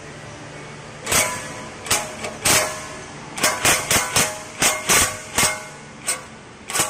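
Cordless 20V impact wrench hammering in a dozen or so short trigger bursts, starting about a second in, as it loosens the 14 mm bolts at the exhaust pipe flange.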